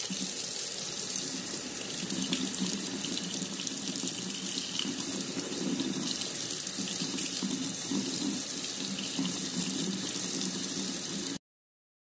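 Kitchen tap running steadily into a stainless-steel sink, the stream splashing off a fabric umbrella canopy held under it. It cuts off suddenly near the end.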